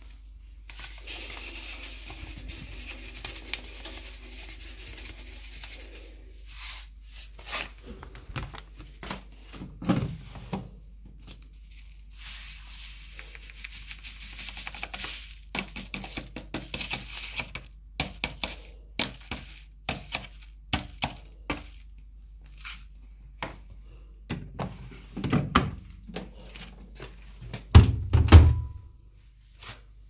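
Paper packet of washing-machine cleaner powder crinkling as it is torn open and handled, then tipped into the washing machine's plastic detergent drawer, with many small clicks and knocks. A few heavy thuds near the end are the loudest sounds.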